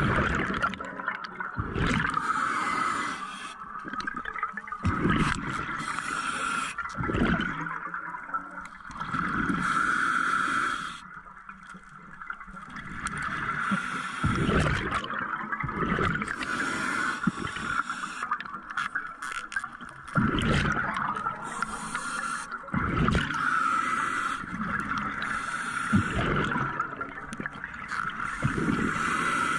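Scuba diver breathing through a regulator underwater: a hissing inhalation and then a rumbling burst of exhaled bubbles, repeating every few seconds, with some scraping from handling gear.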